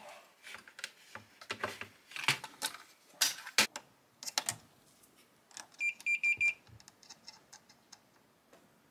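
Light clicks and knocks of plastic and metal parts being handled, then just past the middle a quick run of about five short beeps on one pitch, from a multimeter's continuity tester as its probes are held across the VCR's pause tactile switch.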